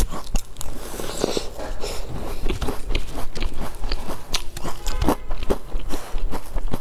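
Close-miked biting and chewing of a large sesame-topped cookie dipped in a white liquid: crisp crunches and crackles coming thick and irregular as the cookie is bitten and chewed.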